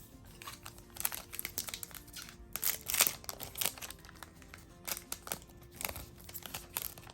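Foil booster pack wrapper crinkling as it is handled and torn open, in a run of crackly rustles that is loudest about three seconds in.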